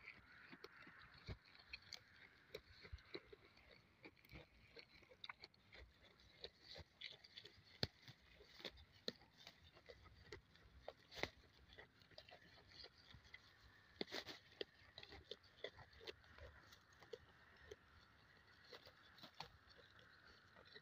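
A goat grazing close by, faintly heard tearing off and chewing grass and flowers: irregular crisp snaps and crunches, often several a second.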